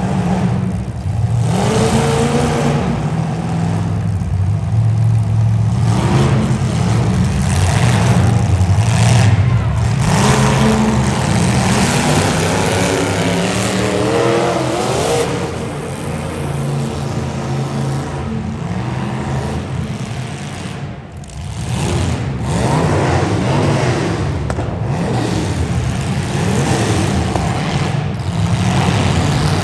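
Demolition derby cars' engines revving, their pitch rising and falling again and again as the cars drive hard around the pit.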